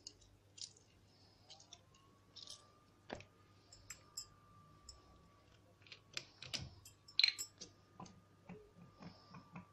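Faint scattered clicks and soft taps of hands and utensils being handled over a bowl, with a denser cluster about two-thirds of the way through, over a faint steady high whine.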